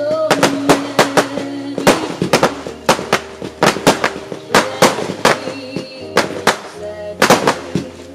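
A fireworks battery firing a rapid, irregular string of sharp shots, several a second, with a short lull about seven seconds in.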